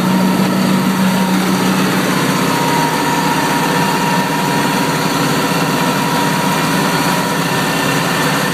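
Tractor engine running steadily while driving a PTO-shaft-powered rear brush chopper over pruned orchard branches. A strong low hum fades about two seconds in, and a thin steady whine carries on above the engine.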